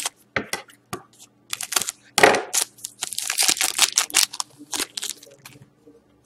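Foil wrapper of a hockey trading-card pack being torn open and crumpled by hand: a run of sharp crackling rustles, loudest about two seconds in, dying away over the last second.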